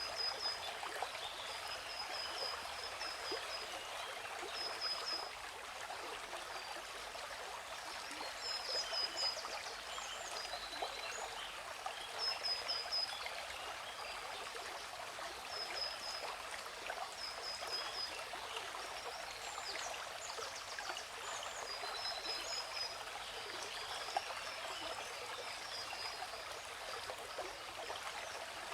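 Steady rushing hiss of a waterfall, with birds chirping over it in short runs of quick high notes that come back every few seconds.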